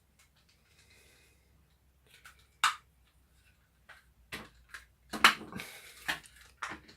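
Sharp clicks and knocks of small plastic parts of a cordless screwdriver's housing being handled and fitted together: one click near three seconds in, then a run of clicks and rattles in the last few seconds, the loudest about five seconds in.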